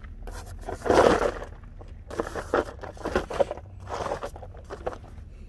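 Footsteps crunching and scraping on gravel in irregular bursts, the loudest about a second in.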